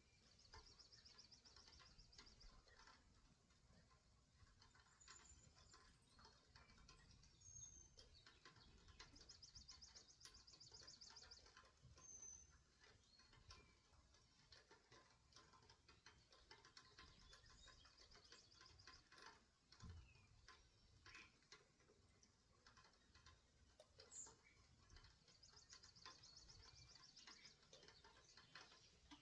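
Faint bird calls: short high chirps and, three times, a rapid high trill lasting about two seconds, with scattered light ticks in between.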